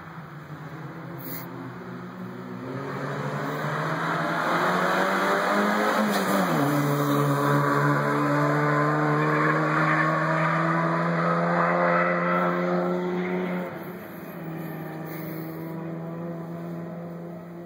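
A hill-climb car on a training run accelerating hard uphill past the verge, its engine note building over the first few seconds. Its pitch drops sharply about six seconds in, then climbs slowly while the car stays loud, and the sound fades away quickly about thirteen seconds in.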